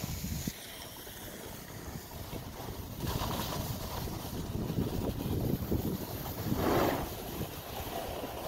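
Snowboard sliding and scraping over groomed snow with wind buffeting the microphone, a rough rumbling hiss that grows louder about three seconds in and surges once more loudly just before the seventh second.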